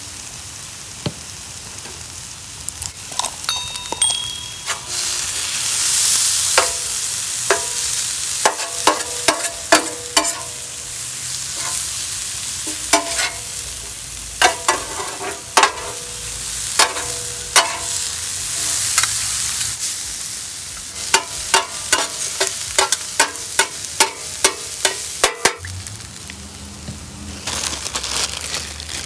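Cauliflower rice and chopped onions sizzling on a steel flat-top griddle, with two metal spatulas scraping and clacking against the cooking surface in quick runs of strikes, some leaving a brief metallic ring.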